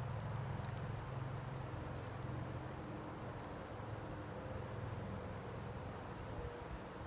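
A steady low rumble, with a faint high-pitched insect chirp repeating evenly about twice a second.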